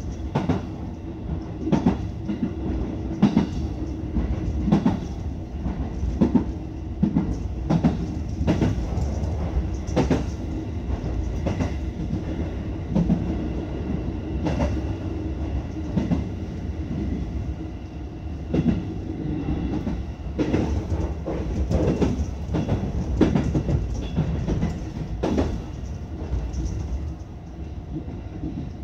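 Electric commuter train running at speed, heard from the front of the leading car: a steady low rumble and hum with the wheels clacking over rail joints every second or so.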